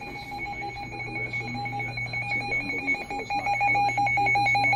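Midland NOAA weather alert radio sounding its alarm: a rapid, steady electronic beeping that grows louder about three seconds in. It signals an incoming severe thunderstorm warning.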